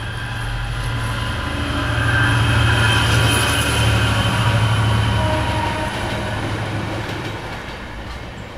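A train passing: a low rumble with a steady high whine from the wheels grows louder to a peak in the middle, then fades.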